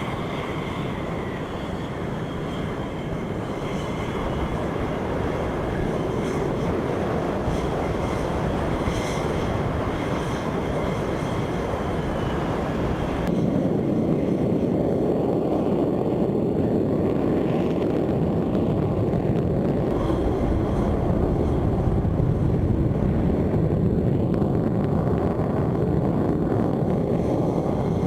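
Jet engine noise of an F-16 fighter's single turbofan, a steady dense rush. About halfway through it changes abruptly, losing its high hiss and becoming louder and deeper.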